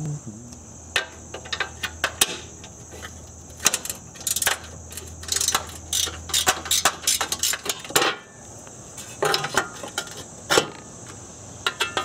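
A socket ratchet clicking in quick runs as the bolts of a car's steel battery tray are backed out, with metal clinks from the tool and the loose bolts. A steady high hiss runs underneath.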